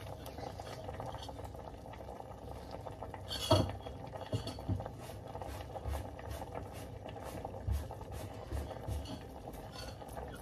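Light clinks and knocks of a spoon against stainless steel pots, scattered and quiet, the clearest about three and a half seconds in, over a faint steady hiss.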